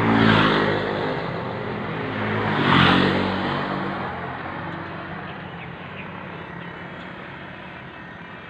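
Motor vehicles passing close by on a road: two loud passes, one just after the start and one about three seconds in, each with engine hum and tyre noise, then the traffic sound fades away.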